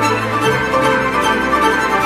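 Background music: sustained chords over a bass line that shifts to a new note about half a second in, with a steady beat.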